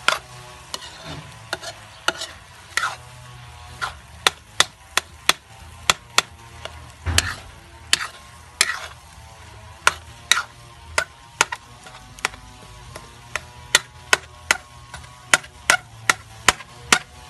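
Metal ladle knocking and scraping against a wok of stir-frying minced pork and bamboo shoots, in sharp irregular strokes about one or two a second, over a low sizzle.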